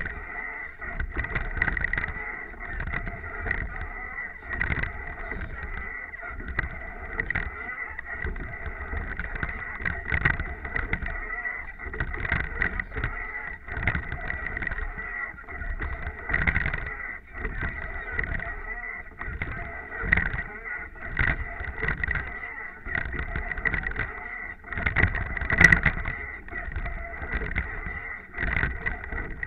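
Water rushing and splashing against the bow of a racing rowing eight under way, with repeated knocks and splashes from the moving boat. One sharp click stands out near the end.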